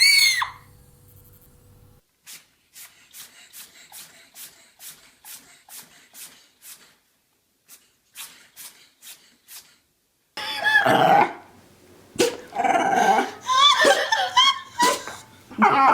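A brief high squeal, then a long run of faint, evenly spaced clicks about three a second, then from about ten seconds in a dog vocalizing loudly in short calls that bend up and down in pitch.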